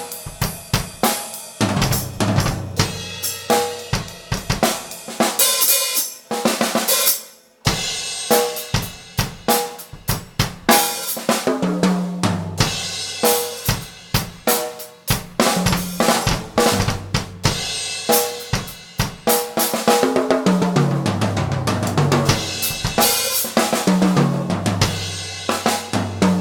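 A live band playing loudly, led by a full drum kit with snare, kick drum, cymbals and hi-hat over a moving bass line. The playing stops briefly about seven seconds in, then comes back in.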